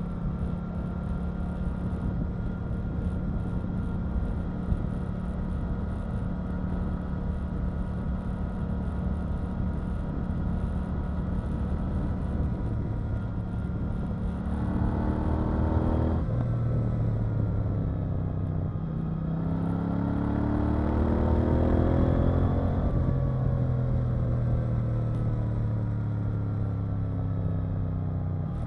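KTM 890 Duke R's parallel-twin engine running at steady revs. About halfway through it revs up through a gear change and climbs again, then the revs fall away as the throttle eases off.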